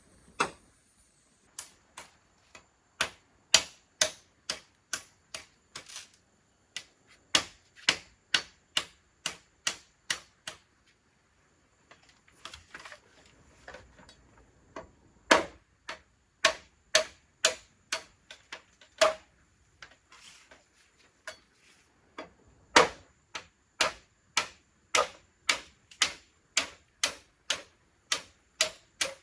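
A long run of sharp, separate clicks, roughly one to two a second, with a short lull about halfway through.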